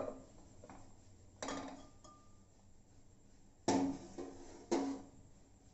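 Metal cookware clanking: an aluminium cake bowl knocking against a pressure cooker as it is set inside, three sharp clanks that ring briefly.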